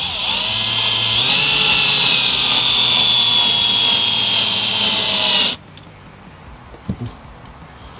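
Cordless drill-driver running steadily as it drives a screw to fix a magnetic hinge plate to a wooden cabinet door. Its whine shifts a little in pitch as the screw goes in, then cuts off suddenly about five and a half seconds in. A few faint clicks follow near the end.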